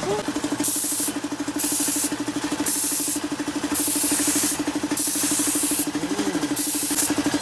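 Gravity-feed spray gun hissing in six short bursts as the trigger is pulled on and off, spraying metallic green base coat onto the car body. Underneath is a steady, pulsing motor hum.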